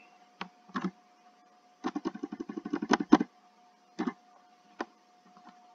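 Computer keyboard typing. A couple of single key presses come first, then a quick run of about a dozen keystrokes lasting just over a second, then two more presses. A faint steady hum runs underneath.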